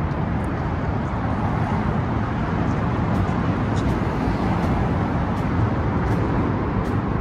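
Steady road-traffic noise, a continuous low rumble of passing vehicles.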